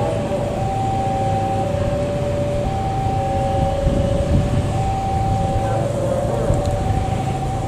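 A two-tone electronic warning alarm alternating between a higher and a lower note about once a second, over the steady low rumble of an approaching diesel-hauled passenger train.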